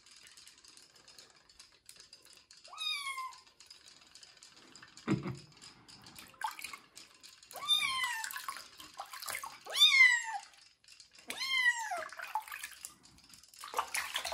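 A wet young kitten meowing during its bath: about four high calls, each falling in pitch, the loudest about ten seconds in. A short low thump comes about five seconds in, and water splashes near the end.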